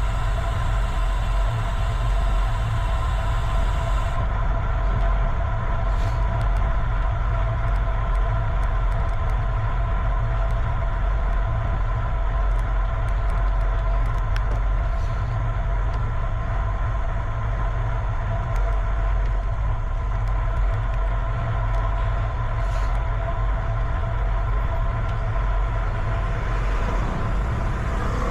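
Steady riding noise: a strong, even low rumble of wind on the microphone with a steady mid-pitched hum, as from a bicycle rolling along a road.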